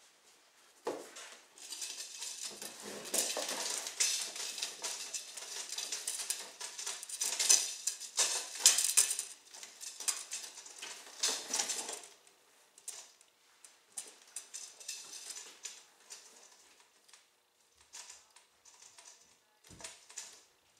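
Clattering and rustling as a wooden-sparred fabric kite is handled and turned over on a workbench: sticks knocking and cloth rustling. It is busiest in the first twelve seconds, then thins to scattered light clicks.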